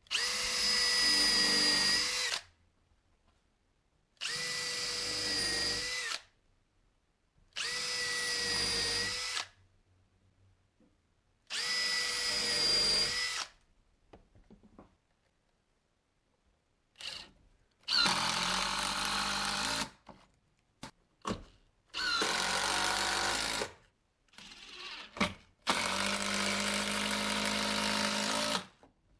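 Drill press running in about seven short bursts of roughly two seconds each, starting and stopping sharply as the bit bores holes into a small block of wood.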